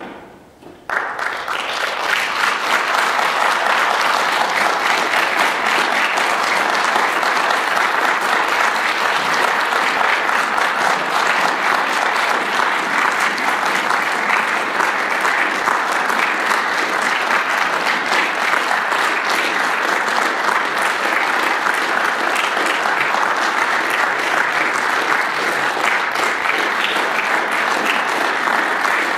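Audience applauding. The applause breaks out suddenly about a second in, then holds steady as a dense clatter of many hands.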